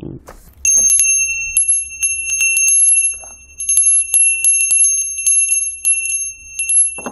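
A bell rung over and over, starting just under a second in: a steady high ringing tone with irregular sharp strikes on top.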